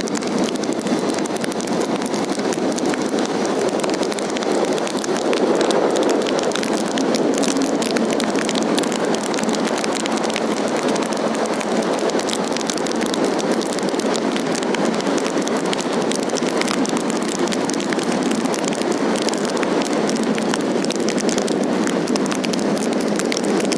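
Rain striking the phone's microphone: a steady hiss dense with small crackles.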